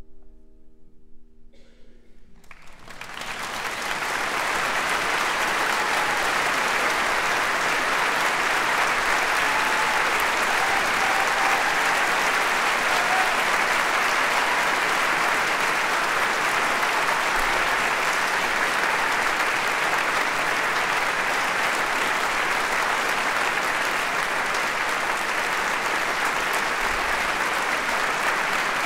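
The last chord of a four-hand piece on a Steinway grand piano fades away. About two seconds in, a large audience starts clapping, and the applause swells within a couple of seconds into steady, sustained applause.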